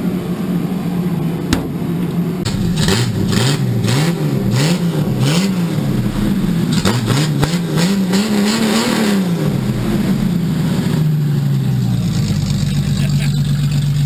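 Jeep Cherokee XJ engine running, revved up and down about five times in a row, then dropping back to a steady idle.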